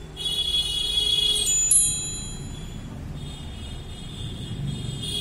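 Several high, clear chime tones ring out together and slowly fade. They are struck again about a second and a half in and sound afresh about three seconds in.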